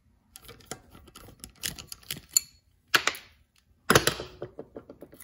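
Irregular clicks and clatter of metal hand tools and small engine parts being handled on a wooden workbench, with two louder knocks about three and four seconds in.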